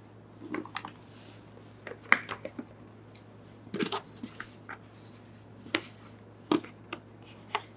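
Scattered light clicks, taps and rustles of a nail drill and its packaging being handled: the handpiece and control unit moved about and a foam insert lifted out of a cardboard box.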